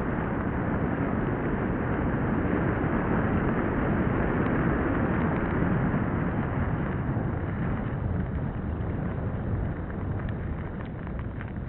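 Wind buffeting the microphone of a mountain bike's on-board camera, over the rumble of tyres rolling on a dirt forest track. It eases a little in the last few seconds, where a few light rattling clicks come through.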